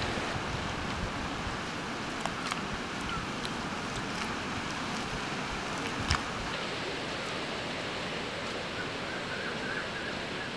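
Steady outdoor background hiss, like wind on the microphone, with a few faint clicks and one sharper tap about six seconds in.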